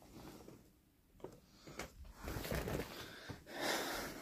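Faint rustling and a few light knocks from a phone being handled and moved about, with a brief louder rustle near the end.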